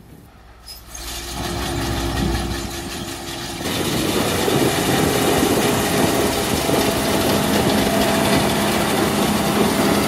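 Diesel engine of harvest machinery running with a steady hum. It starts faint and grows louder with a low rumble about a second in, then turns suddenly louder and fuller near four seconds in.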